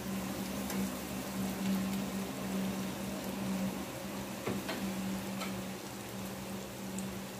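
Breadcrumb-coated pies frying in hot oil in a pan: a steady sizzle with scattered small crackles and pops. A steady low hum runs underneath.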